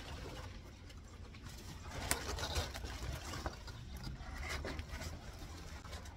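Cardboard shipping box and packing paper rustling, with a few sharp knocks about two seconds in, as a potted holly is worked out of the box, over a steady low rumble.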